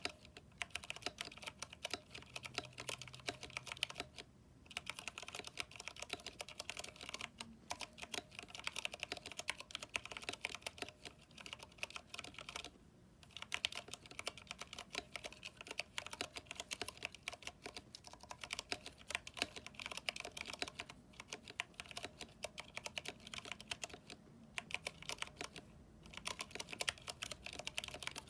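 Fast, continuous typing on a mechanical keyboard with Cherry MX Brown switches, PBT keycaps and lubed stabilizers: rapid keystroke clacks, with a few brief pauses.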